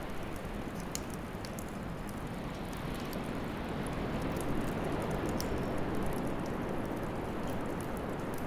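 Wood fire burning in a fire pit, a steady rushing hiss with many small crackles and pops scattered through it.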